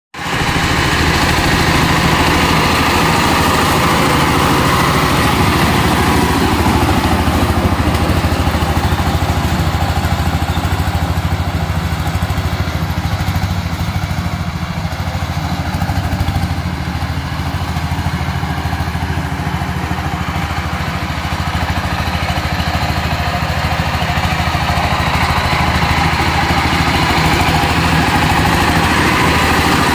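Single-cylinder diesel engine of a walk-behind power tiller running steadily while its rotary tiller churns the soil, growing a little fainter midway as the machine moves off and louder again as it comes back.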